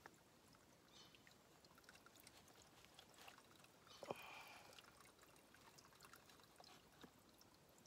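Faint trickle of a shallow stream, with soft scrapes of a Fallkniven TK2 knife blade shaving curls off a thin wooden stick to make a feather stick, and one sharper click about four seconds in.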